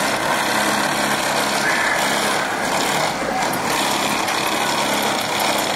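Several car engines running and passing, a steady rough mix of engine and road noise.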